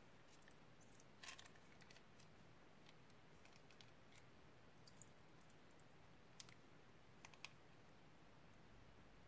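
Near silence, broken by a few faint, scattered clicks and crinkles as a plastic piping bag is squeezed to pipe glue into the bowl.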